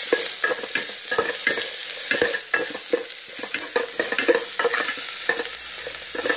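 Chopped onions sizzling in hot oil in an aluminium pot while a metal spoon stirs them, scraping and clinking against the pot about three times a second; the onions are being sautéed until golden.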